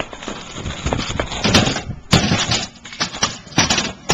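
Kick scooter clattering on a ramp as the rider crashes: a string of sharp knocks and scraping bursts from the scooter's deck and wheels hitting and sliding on the ramp.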